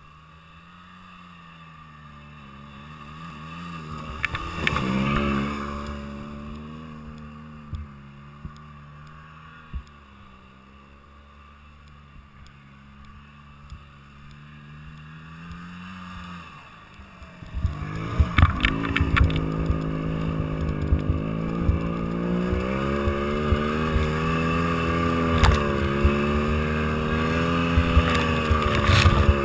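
Snowmobile engine running at varying throttle, its pitch rising and falling as it rides over snow. About two thirds of the way in it gets much louder, with a second snowmobile running close alongside and a quick scatter of knocks and rattles.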